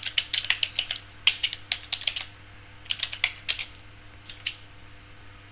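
Typing on a computer keyboard: a quick run of keystrokes over the first two seconds, a few more about three seconds in, and a last couple about four and a half seconds in, then it stops. A faint steady hum lies underneath.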